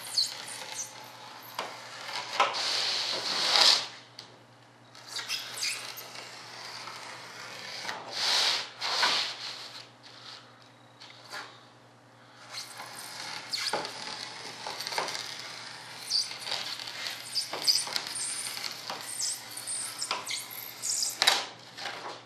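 Knife dragging along the edge of a sheet laid on a workbench, cutting out a pattern: spells of scraping and rustling strokes with short pauses, and a few light knocks and clicks as the sheet is handled.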